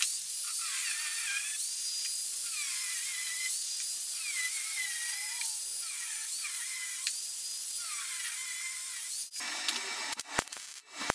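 Angle grinder grinding steel bar, its high whine dipping in pitch again and again as the wheel bears into the metal and recovering as it is eased off. About nine seconds in it gives way to the uneven, stop-and-start crackle of a MIG welding arc on the steel frame.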